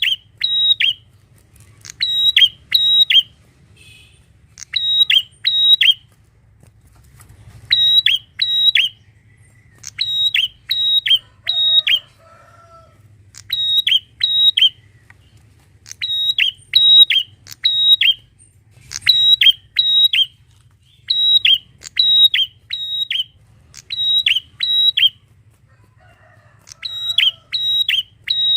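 Prinia (prenjak) calling loudly: sharp, high, ringing notes in quick bursts of two to four, repeated every two to three seconds.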